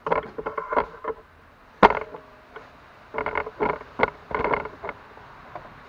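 Clattering and scraping of the underbody skid plate being handled and fitted back under the car: several quick groups of knocks with a slight metallic ring, and one sharp knock about two seconds in.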